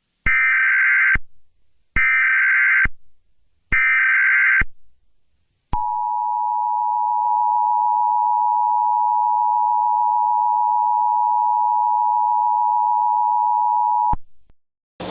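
Emergency Alert System tones: three short bursts of SAME header data tones, each about a second long, then the steady two-tone EAS attention signal, held for about eight seconds before it cuts off. These tones announce an emergency alert message.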